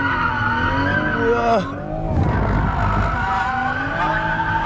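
Toyota A90 Supra drifting, heard from inside the cabin: tyres squealing steadily over the engine. The engine's revs fall about a second and a half in, then climb again near the end.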